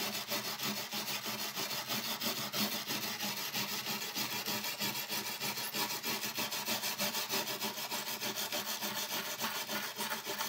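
Small brass wire brush scrubbing back and forth along the grain of a shellacked oak horn in quick, even strokes, about four a second: scratching hardened white car wax out of the open oak grain, taking some of the finish with it.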